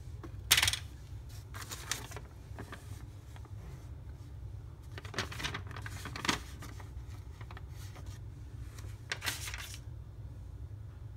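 Paper and cardboard rustling in several short bursts as a printed instruction sheet and cardboard pieces are handled in and out of a cardboard box, over a steady low hum.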